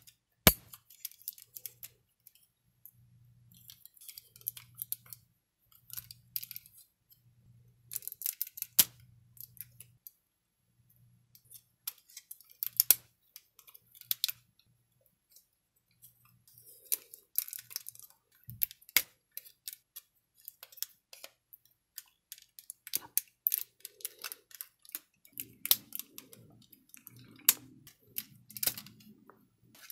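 Small irregular clicks and snaps of a Metal Composite Zeta Plus action figure's plastic and metal parts being moved and clicked into place during its transformation into Wave Rider mode, including its ratcheting joints.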